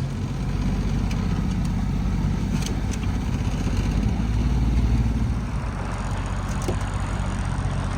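Boat motor running steadily under way, with the rush of wind and water over it.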